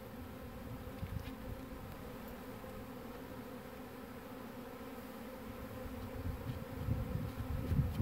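A swarm of Russian honey bees buzzing around an open hive box in a steady, even hum. Low rumbling noise builds near the end.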